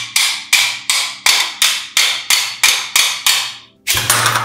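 Claw hammer striking a rusted metal gas-lamp fitting in a steady rhythm, about ten blows at roughly three a second, knocking the seized part apart. The hammering stops, and near the end a single metallic clank rings on.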